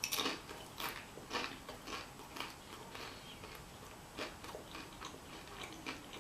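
A person chewing a mouthful of food close to the microphone: soft, irregular mouth clicks and smacks, about two a second.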